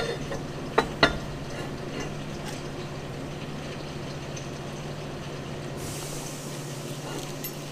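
Two sharp metal clanks about a second in as a steel box tube is set down on a steel welding table, over a steady low hum. A faint hiss starts suddenly near the end.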